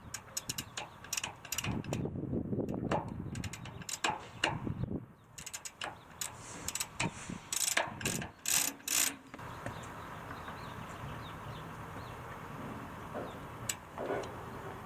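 Quick mechanical clicking and clattering from hand work with tools on metal hardware, densest and loudest near the middle, then dying away into a steady background hum for the last few seconds.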